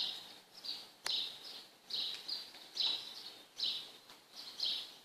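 A bird chirping repeatedly, short high calls about once a second. There is one sharp click about a second in.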